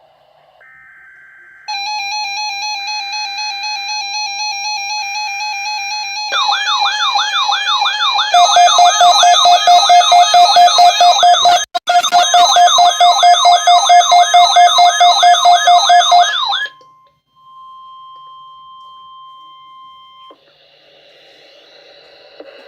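NOAA Weather Radio alert tones: three short buzzy SAME data bursts, overlapped by a loud electronic alarm. The alarm starts as a steady tone, then turns into a warbling siren sweeping up and down about twice a second, and cuts off suddenly after about 15 seconds. It is followed by a steady single-pitch 1050 Hz warning-alarm tone for about three seconds.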